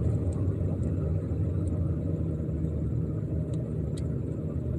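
Steady low engine and road rumble heard from inside the cab of a pickup truck driving along.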